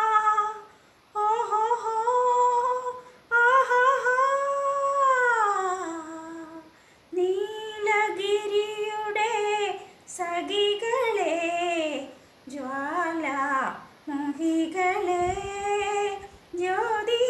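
A woman singing a melody solo and unaccompanied, in long held phrases that glide up and down, with short breaks for breath between them.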